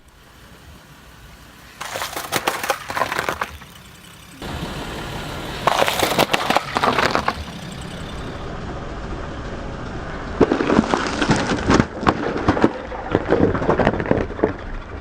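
A car tyre rolling over crunchy objects and crushing them, with bursts of crackling and crunching, three main bouts, over the low rumble of the rolling car.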